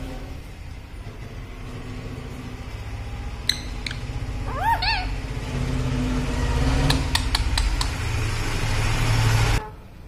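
A low rumbling noise builds up and cuts off abruptly near the end. About halfway through, an Indian ringneck parrot gives one short rising-and-falling call, and a few sharp clicks follow.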